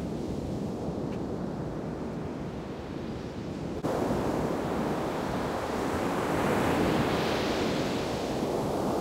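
Ocean surf breaking and washing up a sandy beach, with wind buffeting the microphone. The sound steps up suddenly about four seconds in and swells near the end.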